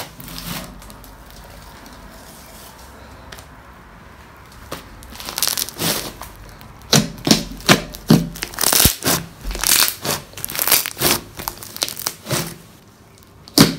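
Large mound of pink glittery slime squeezed and folded by hand, giving a run of sharp wet clicks and pops that starts about four seconds in, with one louder pop near the end.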